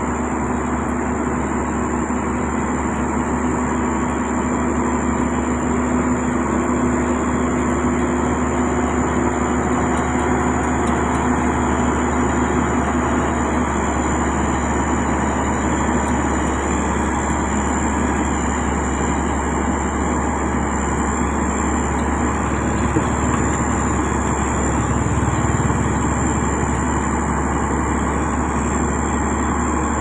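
Heavy diesel road machinery running steadily: a motor grader working a gravel base course, with road rollers nearby. A constant high-pitched whine sits over the low engine drone.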